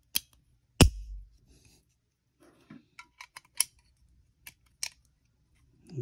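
Metal clicks and knocks as a North American Arms .22 mini revolver is worked into its metal belt-buckle mount. The loudest is a sharp knock with a short dull thud about a second in, followed by a string of lighter clicks.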